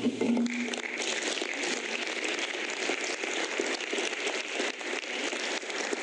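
Members of parliament applauding: many hands clapping together as a dense, steady patter that starts about half a second in and keeps going.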